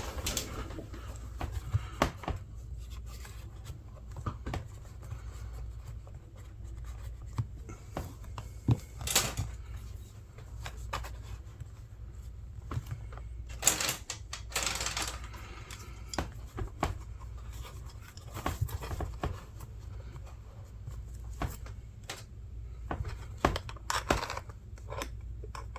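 Scattered clicks, taps and rustles of small tools being handled and slipped into the pockets of a leather apron, with a few longer rustling swishes, over a steady low hum.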